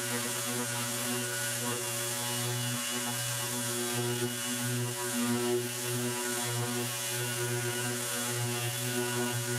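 Cordless random orbit sander running steadily: a constant-pitched motor hum with overtones and no change in speed.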